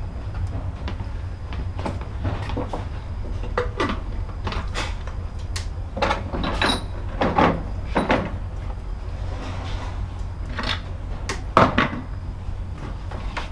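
Irregular knocks and clacks, several close together around the middle and a sharp one near the end, over a steady low rumble.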